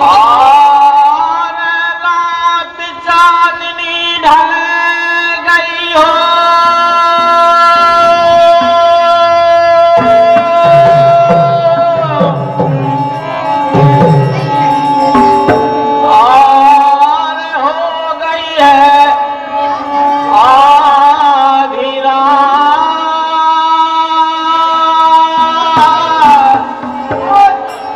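Birha folk music: a harmonium plays a reedy melody of held notes, stepping from note to note, over hand-drum strokes from a dholak and tabla, with a male voice singing wavering, gliding phrases in places.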